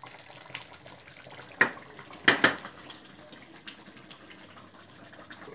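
Spatula stirring wet chicken curry gravy in a metal kadhai, with sharp clinks of metal on the pan about one and a half and two and a half seconds in.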